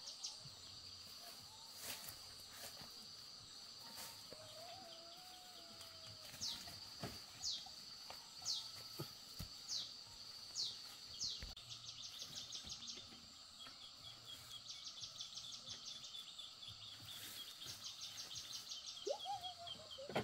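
Forest ambience: a steady, high insect drone, with a bird giving a series of downward-sliding whistled calls and then bursts of fast trills. A few faint knocks from the netting and poles being handled.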